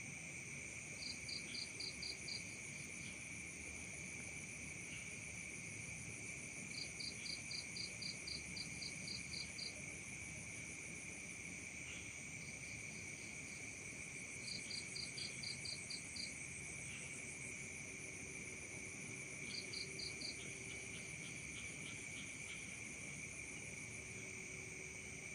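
Night chorus of crickets and other insects trilling steadily at several pitches. About five times, a nearer cricket chirps in short runs of rapid pulses, roughly five a second, each run lasting one to three seconds.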